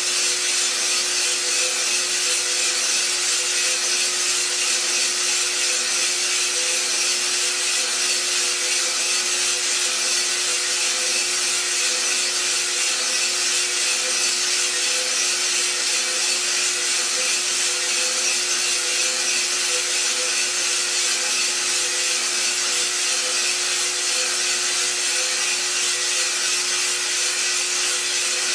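Iroaster 600 coffee roaster running: its motor and fan give a steady hum and whir while green coffee beans tumble in the drum, early in the roast.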